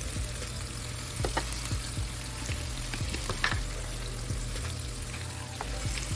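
Salmon frying in hot oil in a pan: a steady sizzle with a couple of louder ticks.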